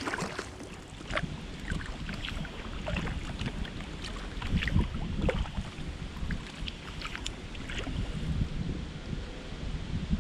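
Kayak paddle strokes dipping and splashing in the river at irregular intervals, with gusty wind rumbling on the microphone.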